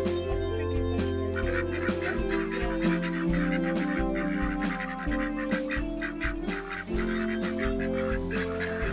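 Background music with a steady beat and held bass notes, with ducks quacking over it.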